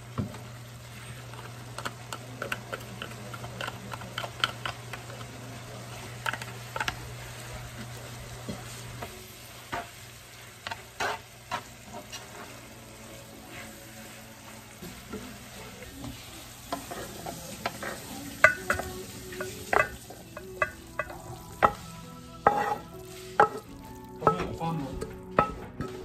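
Pickled cabbage and glass noodles sizzling in a nonstick frying pan, stirred and scraped with a wooden spatula. Under a steady frying hiss the spatula clicks and scrapes against the pan, and the knocks grow louder and more frequent toward the end.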